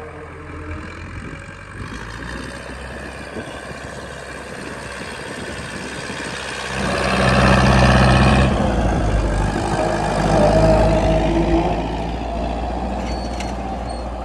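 Massey Ferguson 275 tractor's diesel engine working under load as it pulls a disc harrow through the soil. It grows much louder about seven seconds in, stays loud for several seconds and eases off near the end.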